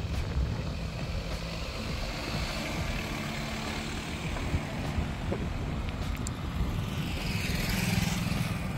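BMW X1 SUV driving past on an asphalt road: steady tyre and engine noise, swelling somewhat near the end.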